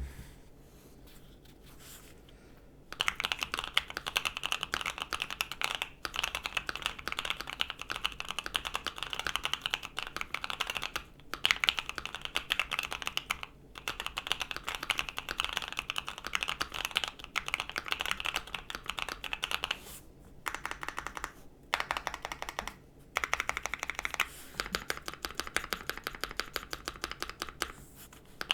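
Keychron Q2 mechanical keyboard with Kailh Box Cream switches (springs lubed, stabilizers band-aid modded and lubed) being typed on fast, giving a very poppy sound. The typing starts about three seconds in and goes on in quick runs, broken by a few short pauses.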